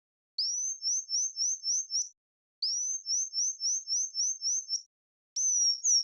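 Synthesized bird tweets from an Absynth 5 loop-envelope patch: three high chirping phrases, each opening with a rising pitch ramp and running into a quick series of short rising chirps, about four a second.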